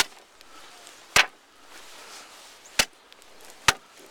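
Steel spud bar jabbed down into thin lake ice, four sharp strikes a second or so apart, testing whether the ice will hold before the next step.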